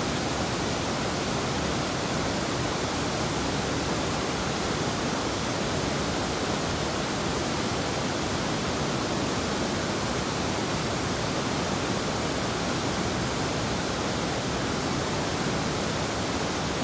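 River water rushing over rapids and small waterfalls: a steady, even rush that does not change.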